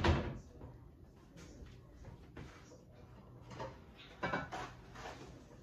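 Kitchen handling noises: a sharp knock right at the start, then a few softer knocks and clatters a few seconds later, like a drawer or dishes being moved.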